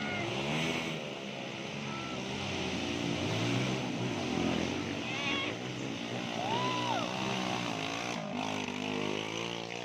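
Several dirt bike engines running and revving, their pitch rising and falling as they overlap, with spectators' voices mixed in.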